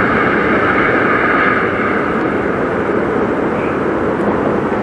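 Jet airliner's engines running at a distance, a steady rushing noise with a whine that is strongest at first and eases after a second or two.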